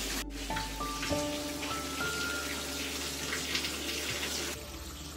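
Water from a burst frozen pipe pouring steadily out of a ceiling vent and splashing onto the floor below.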